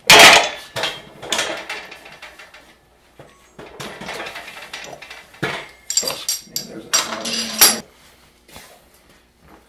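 45-pound weight plates being loaded onto a barbell in a squat rack. The plates clank onto the bar's sleeves, with a loud knock at the start, a few more knocks, and a run of ringing metal clinks about six to eight seconds in.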